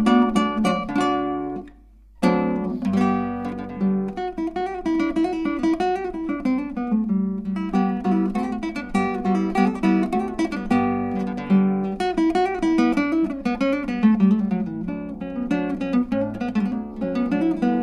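Background music: acoustic guitar playing plucked notes and strummed chords, pausing briefly about two seconds in before carrying on.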